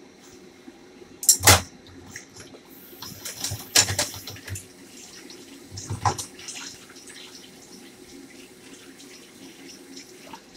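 Kitchen tap running into a sink from about three seconds in until near the end, with three sharp knocks, the loudest about a second and a half in, over a steady low hum.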